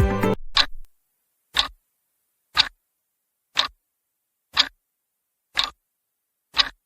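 A clock ticking, one short tick each second with silence between, as background music cuts off just after the start.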